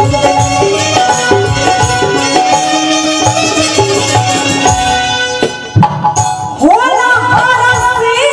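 Live Bhojpuri folk stage music: a hand-drum beat under a keyboard melody, dipping briefly about five and a half seconds in. A woman's voice then comes in singing through the microphone for the last couple of seconds.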